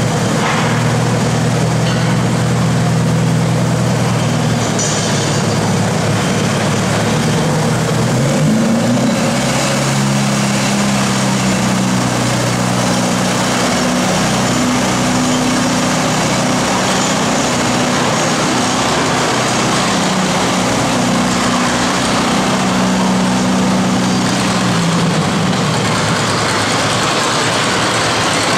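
Antique John Deere two-cylinder tractor engine idling steadily, its pitch shifting a little about a third of the way in and again near the end, over a constant background wash of noise.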